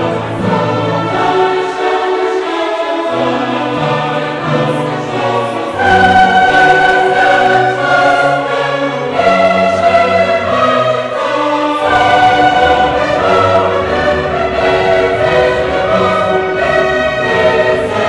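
Background music: slow choral and orchestral music with long held notes, swelling louder about six seconds in.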